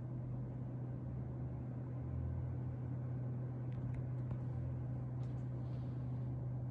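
Mitsubishi Heavy Industries air conditioner running with a steady low hum, with a few faint ticks about four to five seconds in.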